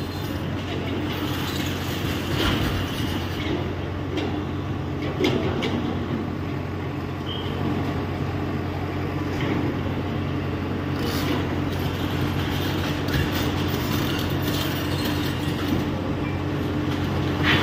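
A Komatsu PC85 excavator's diesel engine running steadily at close range, with a few scattered metallic clanks as a heavy steel support frame is moved.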